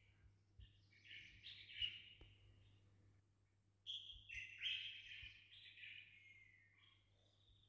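Faint chirping of small birds, in two bursts of quick twittering notes: one about a second in, and a longer one from about four seconds in.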